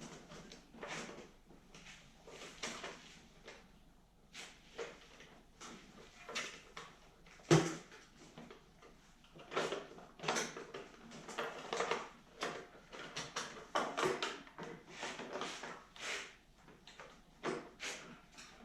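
Irregular clicks, clinks and rattles of hand tools and small engine parts being handled while a snowblower carburetor is taken apart, with one sharp knock about seven and a half seconds in.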